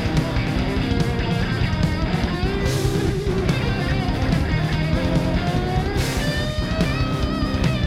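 Rock band playing live: electric guitar over bass and a drum kit, loud and steady.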